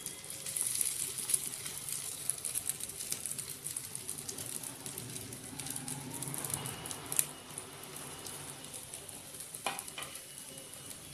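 Paneer-stuffed bread rolls sizzling as they shallow-fry in hot oil and butter in a nonstick pan: a steady crackle with many small pops, a little quieter in the second half. A single sharp click about seven seconds in.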